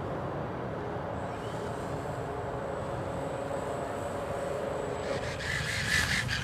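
Wind buffeting the microphone, with a Funtana RC model airplane's electric motor giving a faint, thin, high whine from about a second in until about five seconds in.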